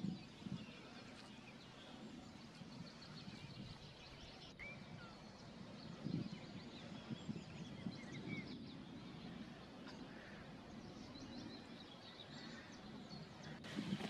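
Faint outdoor birdsong: scattered short chirps and whistles from several small birds, over a low, uneven rumbling background noise with a couple of dull thumps.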